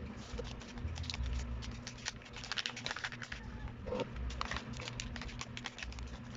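Rapid, irregular light clicks and rustling of small parts being handled, over a steady low hum.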